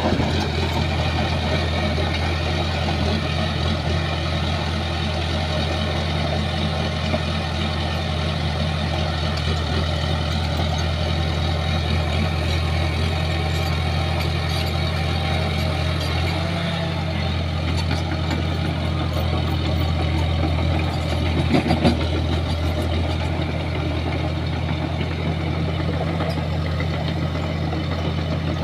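Shantui crawler bulldozer's diesel engine running steadily under work, with a deep even drone. There is a short louder knock about three-quarters of the way through.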